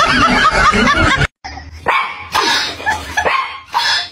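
A loud, busy jumble of sound cuts off abruptly about a second in. After it a dog in a wire crate gives a series of short yips and whines.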